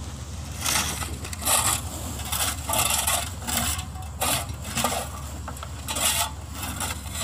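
Steel shovels scraping and scooping wet mud off a landing craft's steel ramp, in repeated irregular strokes about once or twice a second, over the steady low hum of the vessel's engine.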